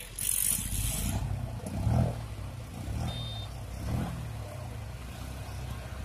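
Diesel engine of a Caterpillar 120K2 motor grader running under load as its blade cuts the road shoulder, the engine note swelling and easing about once a second.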